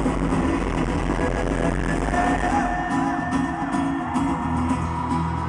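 Live concert music played through a stadium PA: a male singer with guitar.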